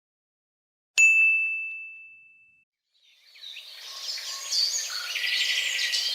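A single bright ding about a second in, one clear tone that rings out and fades over a second or two. About three seconds in, a chorus of birds chirping starts.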